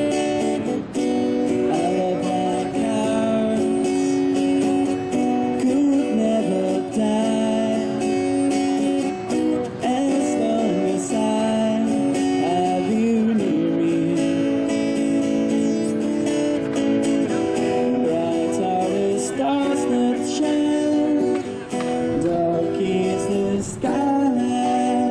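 Music led by a strummed acoustic guitar, playing steadily.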